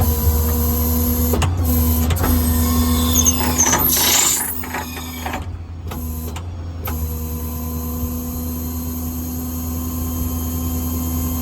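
Hydraulic outriggers on a crane service truck being powered down, with a steady hydraulic pump hum and whine. It is louder for about the first four seconds, with a brief hiss around four seconds in, then settles to a slightly lower steady drone.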